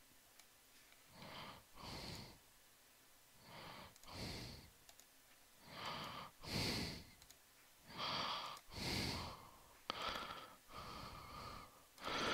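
A man breathing quietly close to the microphone, a soft breath in and out about every two seconds, with one small click a little before the end.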